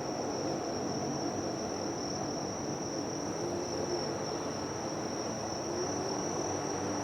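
Insects, crickets or katydids, trilling in one steady high-pitched drone over a low background murmur.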